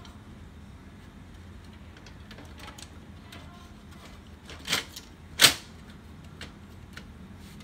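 Two sharp plastic clicks, a little under a second apart about halfway through, the second the louder, with a few faint ticks around them, as hands work the parts inside the open fuser bay of an HP LaserJet P3015 laser printer.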